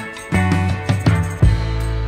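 Background music with a steady beat: drums over a bass line and sustained notes.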